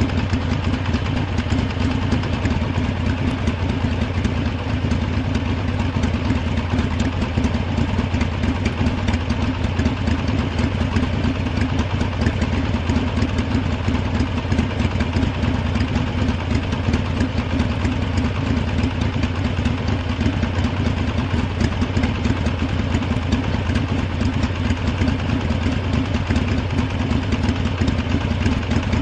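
Harley-Davidson motorcycle's V-twin engine idling steadily, a fast even low pulsing with no revs or changes.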